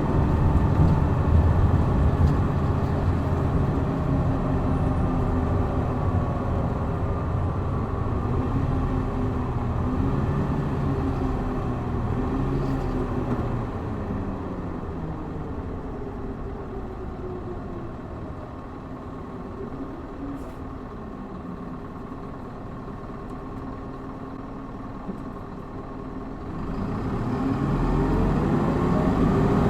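Hino Blue Ribbon city bus diesel engine heard from inside the bus: the engine note falls and grows quieter as the bus slows, runs low for several seconds, then rises steeply and loudly about 27 seconds in as the bus accelerates hard in its power-mode setting.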